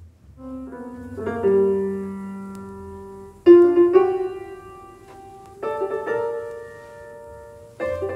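Solo piano playing slow, widely spaced chords, each struck and left to ring and fade, reproduced from a vinyl record over a hi-fi system. The loudest chord comes a little past the middle.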